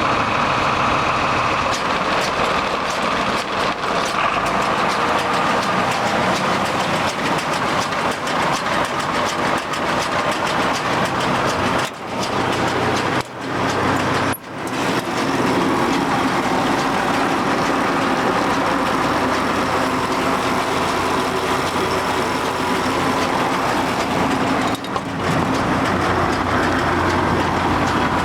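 Vermeer 605K round baler running off a tractor's PTO: a steady mechanical clatter over the tractor engine's low drone, dipping briefly a few times.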